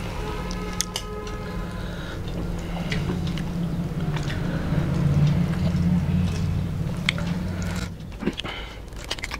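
Wet squelching and smacking of hands mixing rice with curry and of chewing, heard as scattered small clicks. Under it runs a steady low hum, louder in the middle, that stops about a second before the end.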